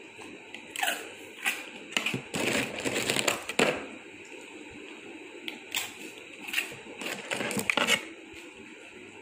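A yellow Labrador crunching a hard Marie biscuit: irregular crisp cracks and crunches in two spells, with a short pause about four seconds in.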